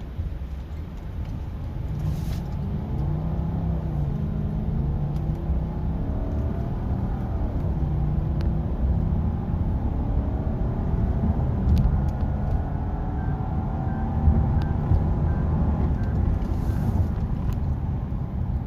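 Cabin noise of a Lexus LS460 at highway speed: a steady low rumble of road and engine, its 4.6-litre V8 pulling strongly after a tune-up, with engine tones that rise and fall.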